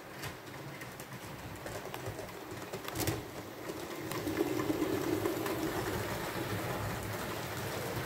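Two model Pacific steam locomotives running on a model railway, their electric motors humming and their wheels rumbling on the track, with a sharp click about three seconds in. The hum grows louder about halfway through as the double-headed train passes close.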